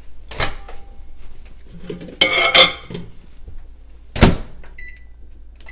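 Microwave oven being loaded and set: a click, a clatter as the door opens and a glass goes in, a sharp thunk as the door shuts a little past four seconds in, then a few short keypad beeps near the end.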